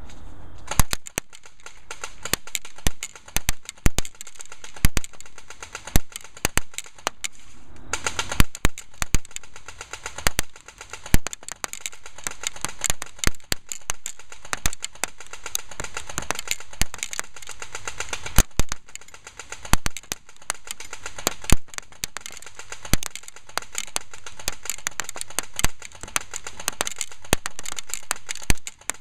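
Battery-powered Well D93 airsoft Mac-11 firing full-auto in long strings: a rapid clatter of shots, with louder sharp cracks scattered through.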